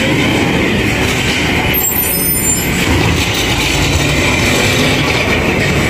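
A heavy truck engine running steadily.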